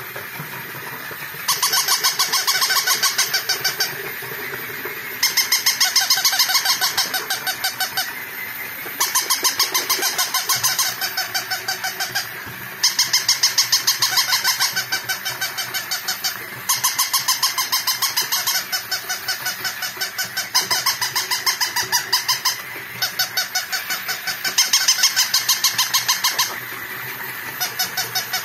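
Battery-operated walking plush dog toys sounding off through their small speakers: bursts of rapid, tinny electronic yapping, each about two to three seconds long with short pauses between, over the steady whir of their walking mechanisms.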